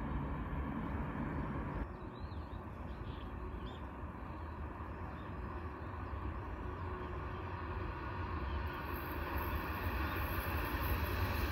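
Trackside outdoor rumble with wind on the microphone, changing abruptly about two seconds in; from about eight seconds in, the sound of an approaching train grows steadily louder.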